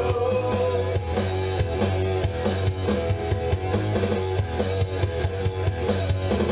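Rock band playing an instrumental passage: a drum kit keeping a steady beat with bass drum and snare, over guitar and a sustained bass line, with no singing.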